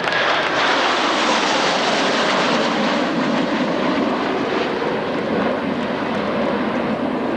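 Blue Angels F/A-18 Hornet jets passing low and loud, with a tone that falls in pitch over the first couple of seconds as they go by, then a steady jet rumble as they pull away.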